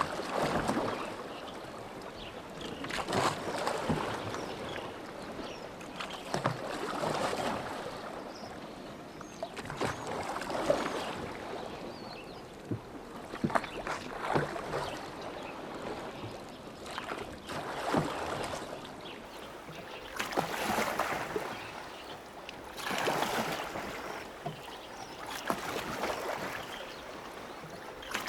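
Oars of a rowboat dipping and pulling through lake water in a steady rowing rhythm, a splashing swell about every three seconds, with a few short sharp knocks among the strokes.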